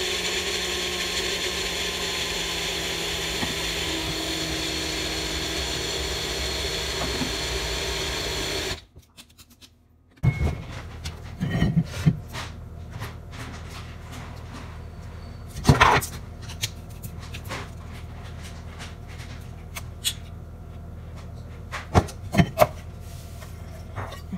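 A bullet-style personal blender runs steadily, then cuts off about nine seconds in. After a moment of silence come scattered clicks, knocks and rattles of a shaker bottle and containers being handled on a kitchen counter.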